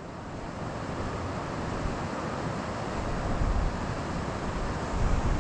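Steady rush of flowing creek water, with wind buffeting the microphone in low gusts past the middle and again near the end.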